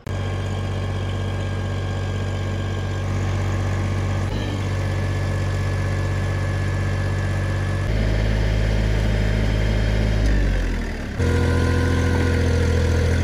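Tractor-backhoe diesel engine running steadily under load, pulling a stuck tractor out of mud on a strap. Its note changes and gets louder about eight seconds in, dips briefly near eleven seconds, then comes back louder still.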